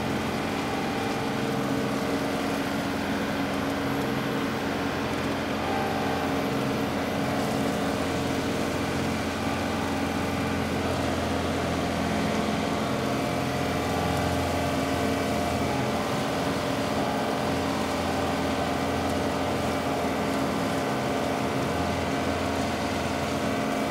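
John Deere 2038R compact tractor's three-cylinder diesel running steadily under load, driving a Rhino TS10 flex-wing rotary cutter through tall grass; a continuous engine drone with the mower's spinning blades, the pitch shifting slightly a few times as the load changes.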